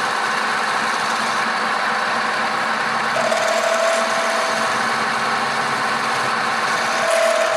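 Wood lathe running steadily, with something rubbing on the spinning wood. A thin whine comes in about three seconds in, fades, and returns near the end.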